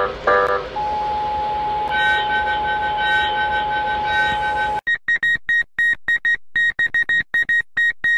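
Synthesized emergency-alert tones: a pulsing alarm stops just after the start, then a steady tone sounds, with a higher tone joining it about a second later. About five seconds in it breaks into a fast, uneven run of short high beeps.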